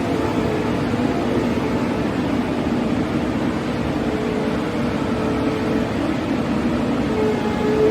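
A machine running steadily: an even mechanical hum with a faint steady whine.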